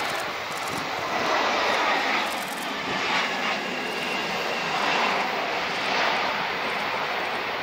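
Airbus A320 airliner's jet engines landing: a steady jet rush as it touches down and rolls out along the runway, swelling and easing a few times, with a faint whine partway through.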